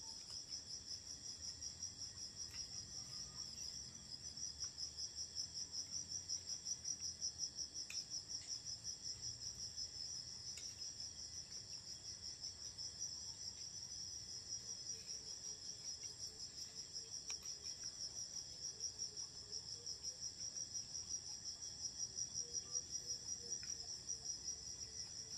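Crickets chirping in a high, steady, rapidly pulsing trill, with a few faint clicks here and there.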